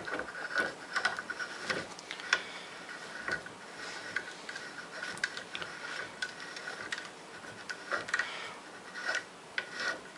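Savage Edge rifle action being turned by hand onto the barrel threads, with a Go headspace gauge in the chamber, to set headspace: irregular light metallic ticks and faint scraping as the threads turn.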